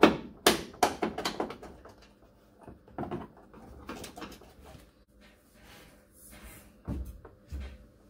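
A headliner section and its retaining rail being pulled free in a truck cab: a quick run of sharp knocks and rattles in the first second and a half, another knock about three seconds in, softer rustling, then two dull thumps near the end.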